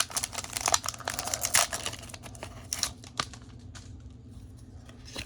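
Foil Pokémon TCG booster pack wrapper crinkling and tearing as it is opened, thick with sharp crackles for the first two to three seconds, then thinning to a few light clicks and rustles.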